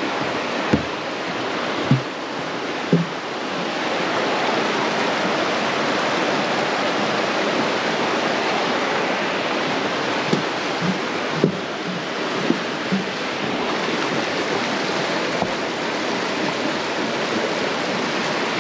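Steady rushing of a fast creek. Short low thumps of footsteps on the trail come about once a second near the start, and a few more come about two-thirds of the way through.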